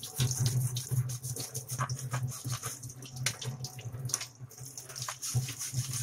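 Kitchen tap water running over a dishwasher's mesh drain filter into a stainless steel sink, splashing and spattering as the filter is turned under the stream and scrubbed with a brush. A low hum swells and fades underneath throughout.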